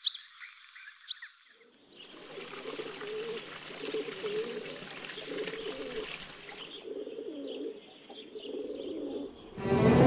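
Feral pigeons cooing over and over in low, rolling phrases, with small birds chirping high above them at first. Music comes in near the end.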